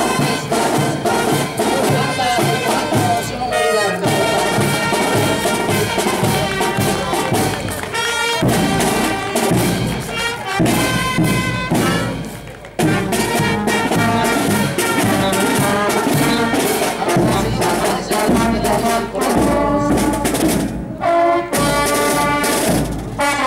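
Brass band with snare and bass drums playing a march, the brass carrying the tune over a steady drumbeat; the music drops out briefly about twelve seconds in and starts again.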